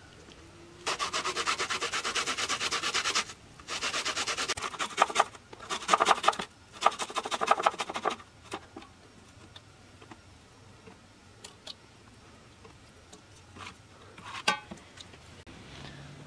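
Garlic cloves rubbed fast up and down a metal box grater, a rasping scrape of rapid strokes in four runs over about seven seconds, followed by a few light taps and clicks.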